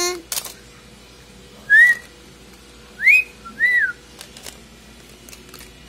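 Three short whistled notes, each rising then falling in pitch: one, then two close together about a second later.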